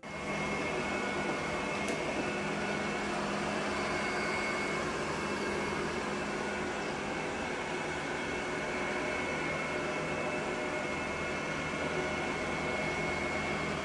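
Robot vacuum cleaner running with a steady whir and a thin, steady high whine over it.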